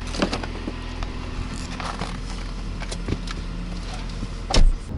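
Car engine running as the car drives off, with road noise, scattered light clicks and knocks, and one loud thump near the end.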